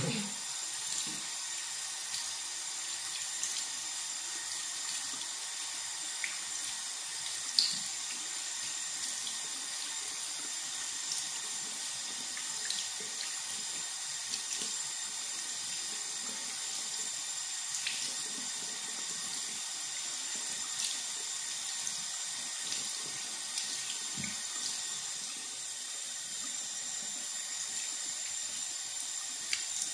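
Bathroom tap running steadily into a sink while a skincare product is rinsed off the face by hand, with short splashes now and then and one sharper splash about seven seconds in.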